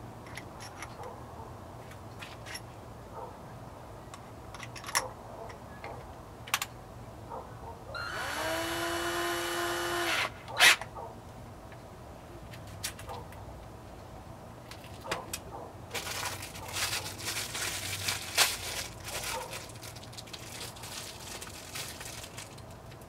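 Power drill with a twist bit: the motor spins up with a rising whine about eight seconds in, runs steadily for about two seconds and stops, followed by one sharp click, the loudest sound. Later comes several seconds of scraping, rustling noise dotted with clicks.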